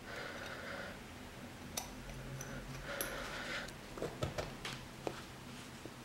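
Copper tube being pushed into a brass push-to-connect refrigerant coupling (Parker ZoomLock Push) by gloved hands: two brief scraping slides, then about six light clicks and taps, most of them about four to five seconds in.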